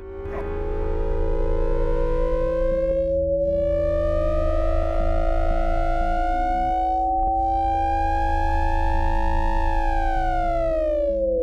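Synthesized electronic tones from a Max patch. A sliding tone rises slowly for about nine seconds, then drops steeply near the end, over steady held tones and a low hum.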